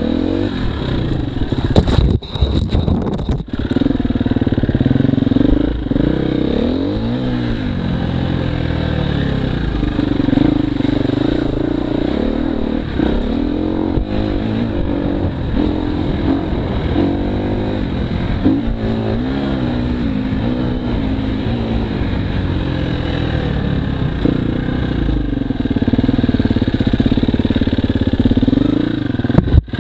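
Husqvarna FE 250 four-stroke single-cylinder enduro motorcycle ridden over rough gravel, its engine revving up and down repeatedly. A few sharp knocks come about two to three seconds in.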